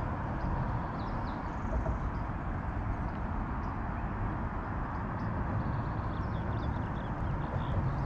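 Steady low outdoor rumble by the river, with faint short high chirps scattered through it.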